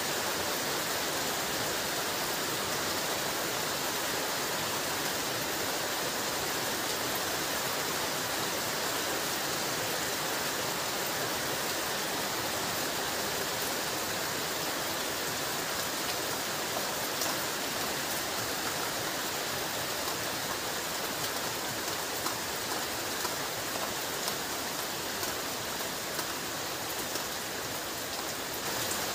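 Heavy rain falling steadily, a dense even hiss, with a few sharper drop hits in the second half.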